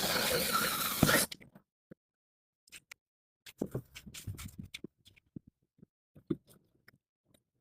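Handling noise from small hard parts: a loud rasping scrape for about a second, then a scatter of light clicks and taps.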